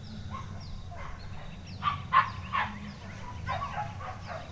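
Hunting dogs yelping and baying in the undergrowth while chasing a wild boar, in short broken cries: a cluster about two seconds in, loudest there, and more from about three and a half seconds.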